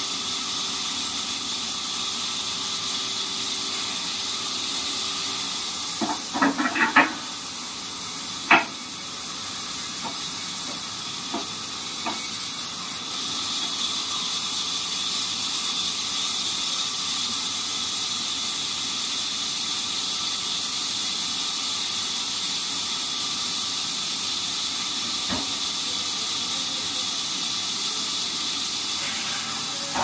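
A steady high hiss throughout, with a cluster of knocks about six to eight seconds in and a few lighter knocks later, as a teak log is levered and shifted into place on a band sawmill's steel log carriage.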